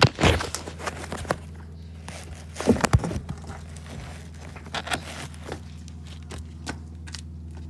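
Scattered light knocks and clicks over a steady low hum, the loudest knock about three seconds in.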